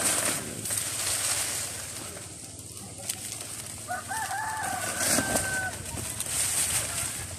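A rooster crows once, about four seconds in, a stepped call of under two seconds, over rustling from soil and a plastic sack being handled.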